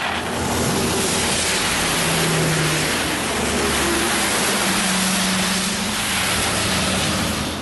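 A motor vehicle's engine running close by, a low hum that drifts slightly in pitch under a loud, steady rushing noise.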